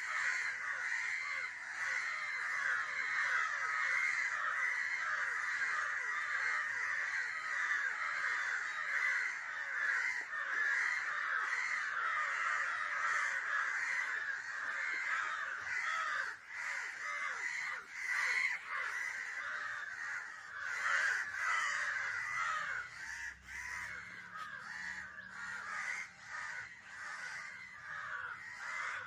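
Crows cawing without pause, many calls overlapping. These are the alarm and distress calls of crows while a kitten grapples with one of them on the ground.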